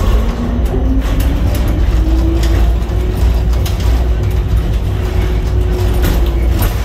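Hammerhead container gantry crane at work, heard from on the crane: a motor whine rises in pitch over the first couple of seconds, holds steady and stops near the end, over a heavy low rumble with scattered clanks and rattles.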